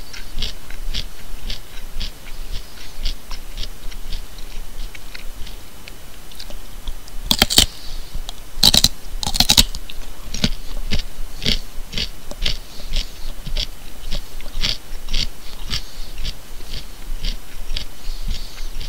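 A person chewing raw carrot: a steady run of crisp crunches, about two to three a second, with three louder, sharper crunches near the middle.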